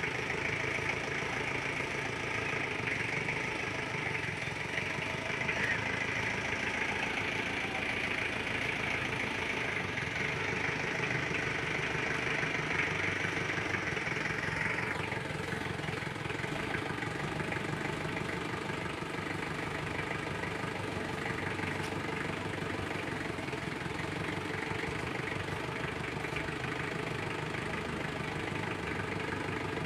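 An old jeep's engine running steadily at low speed as it crawls along a rough dirt track. A high hiss in the background stops abruptly about halfway through.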